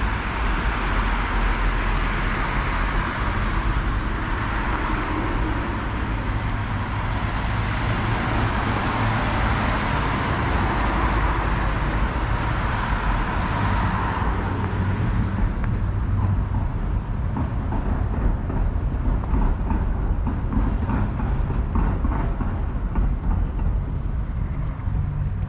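City road traffic: a vehicle's passing hiss fills the first half and fades away about halfway through, leaving a steady low traffic rumble.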